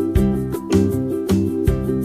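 Background music: a plucked string instrument playing in a steady, regular rhythm.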